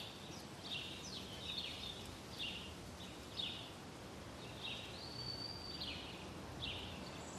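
Faint birdsong ambience: short high chirps every half second to a second over a soft background hiss, with one longer held whistle about five seconds in.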